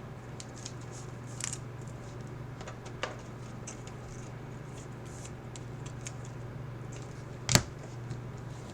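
Trading cards being handled and slid through by hand: soft scattered scratches and ticks, with one sharp click about seven and a half seconds in, over a steady low hum.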